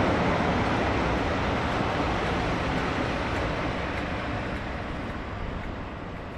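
Two Class 47 diesel locomotives running light in tandem, their engines and wheels a steady rumble that fades as they pull away.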